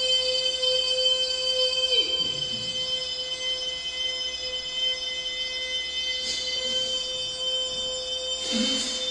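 A man's voice holding one steady, high-pitched droning tone through a fixed, strained grin. It breaks off with a downward slide about two seconds in. Two short breathy rushes follow, near six seconds and again near the end, as he draws breath between efforts.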